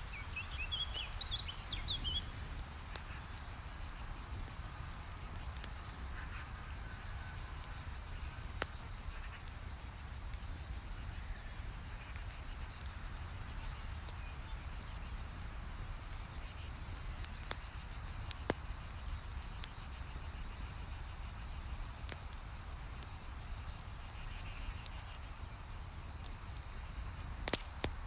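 Campfire with a few sharp, scattered crackling pops over a steady outdoor background of insects chirping, like crickets. A brief run of bird-like chirps comes about a second in.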